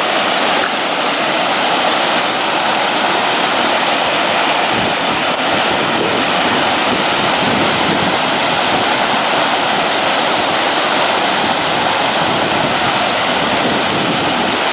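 Flash-flood runoff rushing and churning down a swollen concrete drainage channel: a steady, loud wash of water.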